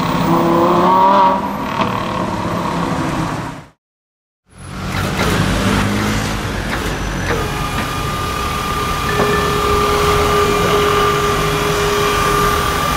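Street traffic with a car engine revving as it pulls away. After a brief cut, an idling truck and traffic, with a steady high mechanical whine starting partway through as the car transporter's hydraulic tail-lift ramp is lowered.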